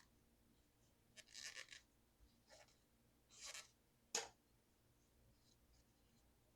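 Faint short scratchy rubbing strokes, three of them, then a single sharp click about four seconds in.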